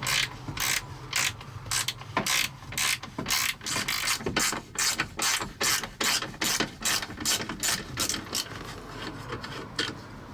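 Hand socket ratchet clicking in quick repeated strokes, several clicks a second with short pauses, as bolts are being undone to drop a truck's steering column.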